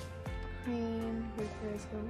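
Background music: plucked notes under a held melody line that slides in pitch.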